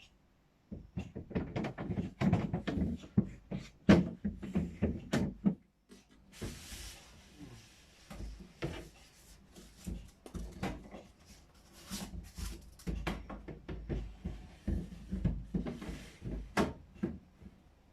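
Irregular knocks, clicks and bumps from handling a newly unboxed refrigerator and its plastic fittings and packaging. The knocking is busiest for the first six seconds, then turns to lighter, scattered clatter.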